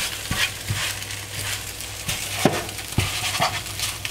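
Kaiserschmarrn pieces sizzling in a nonstick frying pan as two spatulas cut and scrape through them, with irregular sharp taps of the spatulas against the pan.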